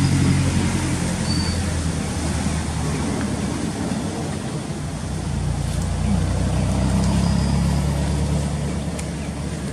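Motor vehicle engine running close by, a low drone with road noise that eases off over the first few seconds and swells again about six seconds in.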